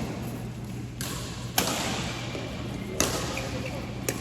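Ball being hit back and forth in a doubles rally: three sharp hits, roughly a second and a half apart, in a large room.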